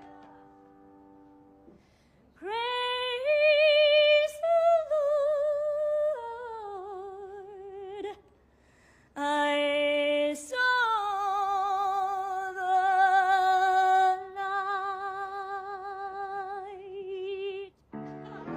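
A woman singing solo and unaccompanied in two long phrases, holding sustained notes with a wide vibrato, the pitch stepping down through each phrase.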